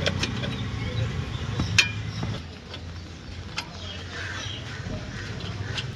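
A few sharp metallic clicks and clinks of work on car parts, the loudest about two seconds in, over a steady low hum.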